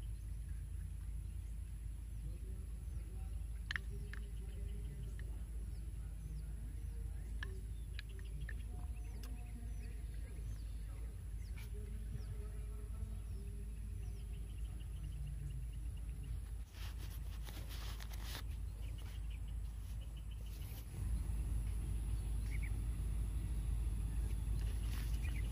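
Outdoor ambience of wind rumbling on the microphone, with faint, scattered bird chirps and a few soft handling clicks. The rumble gets louder about three-quarters of the way through.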